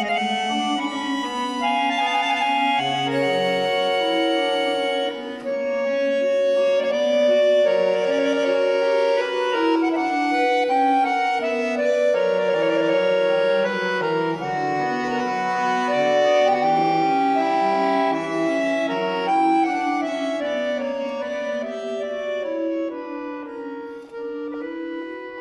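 Bayan (Russian chromatic button accordion) playing solo: sustained chords with a moving melody above and bass notes below, some notes wavering. The playing eases off briefly near the end.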